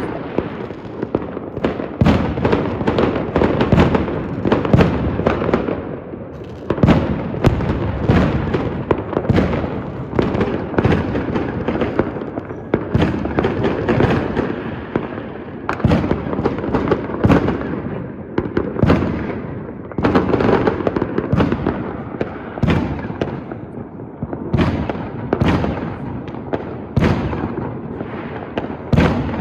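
New Year's fireworks display: a dense, continuous barrage of shell bursts, several bangs a second over an unbroken rumble and crackle.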